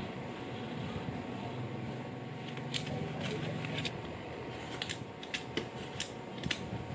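Craft knife blade cutting through leather in a series of short, sharp strokes, starting about three seconds in, as a wallet panel's corner is trimmed round.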